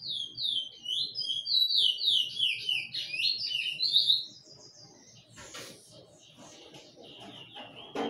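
Songbird singing a quick run of loud, repeated, down-slurred whistled notes for about four seconds, ending in a short high trill; softer chirps and calls follow later on.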